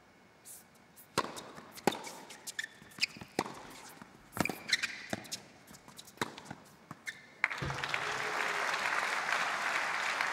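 Tennis point on an indoor hard court: a serve and a string of sharp racket strikes on the ball. About seven and a half seconds in, the point ends and the crowd breaks into applause.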